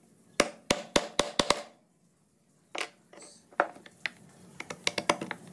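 Wood-carving chisel driven into a wooden panel by mallet blows: a quick run of sharp wooden knocks, a short pause, then a few single knocks and a faster run of lighter taps near the end.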